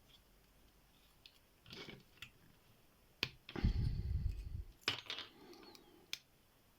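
Sharp clicks and light metallic clinks of small padlock parts being worked apart by hand, with a louder rubbing clatter about halfway through.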